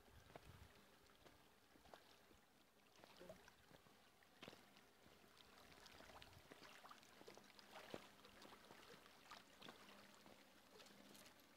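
Very faint water sounds from the river below a hydroelectric dam, with scattered light clicks and taps throughout.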